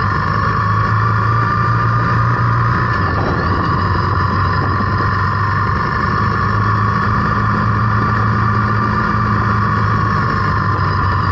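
Zontes T350's single-cylinder engine running steadily as the motorcycle rides along at an even pace, with wind noise on the microphone.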